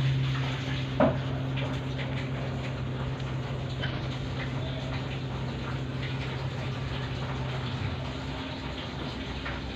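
A steady low hum with faint, irregular clicks from a parakeet's beak nibbling a green stalk, and a sharper click about a second in.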